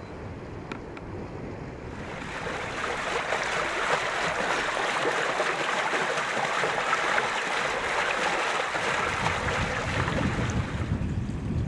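A low wind-like rumble at first, then from about two seconds in the steady rush of water pouring down a concrete irrigation channel, which gives way to low rumble again near the end.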